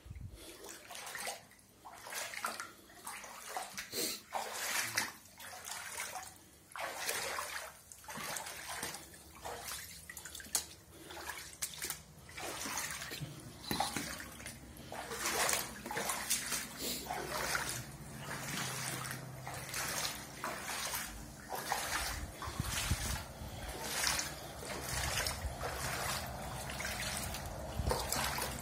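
Water splashing and sloshing in irregular surges on a flooded floor. A low steady hum comes in about two-thirds of the way through.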